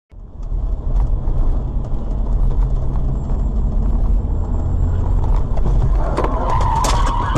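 Steady low rumble of a car's engine and tyres on the road, picked up by a dashboard camera inside the car. Near the end a higher-pitched squeal rises over it, with a few sharp clicks.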